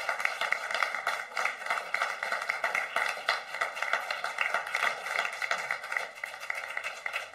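Studio audience applause, a dense, steady patter of many hands clapping that stops abruptly.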